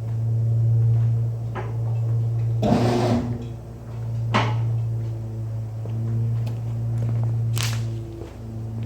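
Scattered knocks and a short clatter as a block of wood and the tubular A-arm are handled while a front coilover is compressed, over a steady low hum. The loudest clatter comes about three seconds in, with single knocks before and after it.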